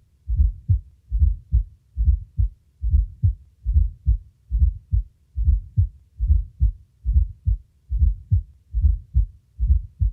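Heartbeat with a fourth heart sound (S4), or atrial gallop: a low extra sound just before each first heart sound, giving a gallop rhythm of about 70 beats a minute. The S4 is the late-diastolic vibration as the atria contract into a ventricle of decreased compliance.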